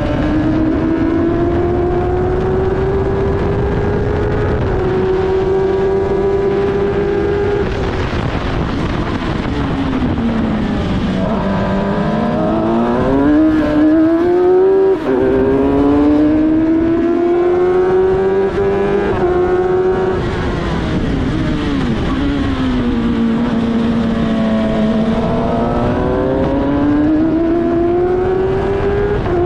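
F1000 single-seater's Suzuki motorcycle-derived engine at race pace, heard from the cockpit. The revs climb through the gears with quick upshifts, then fall away twice under braking and downshifts before climbing again.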